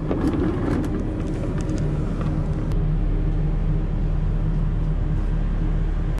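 Steady low engine drone of a ship's machinery heard on deck, with a few light clicks of handling in the first couple of seconds.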